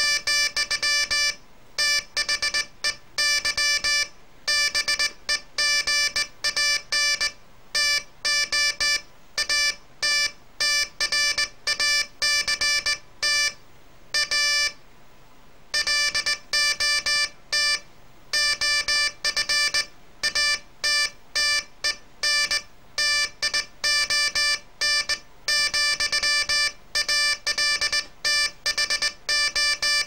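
Morse code sent by hand on a straight key, keying a home-built oscillator: a single steady-pitched beep tone switching on and off in dots and dashes, with a break of about a second halfway through.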